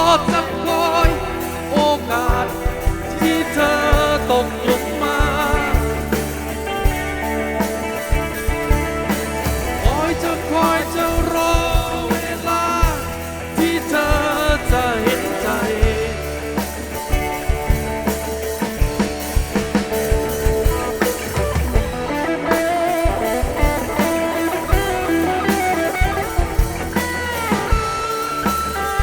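Live band playing an instrumental passage through a PA system: a lead guitar line with bending notes over bass and a drum kit keeping a steady beat.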